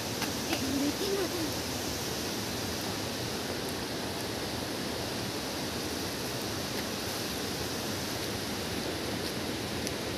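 A steady, even rushing noise with no rhythm or change, like running water on a hillside. A person murmurs briefly about a second in.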